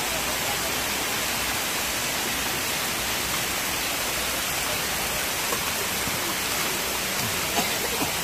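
A steady, even hiss with a few faint clicks in the last few seconds.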